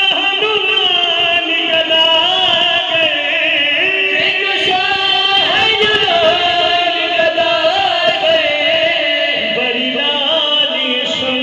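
Men singing a devotional song into microphones over a sound system, with long held notes that glide slowly in pitch.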